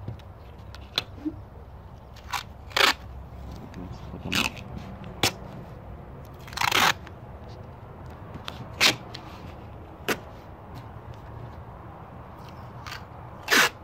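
Masking tape being unrolled from its roll and torn off in short, crackling rips, about nine times, with one longer pull near the middle.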